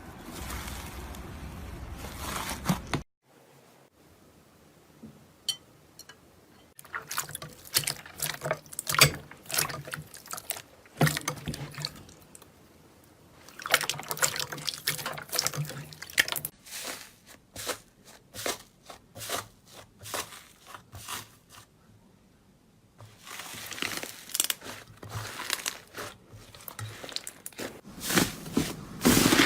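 Slime being squished, pressed and stretched by hand: wet squelching with sticky clicks and small pops in uneven bursts. The sound cuts abruptly to a different texture about 3 seconds in and again near 23 seconds.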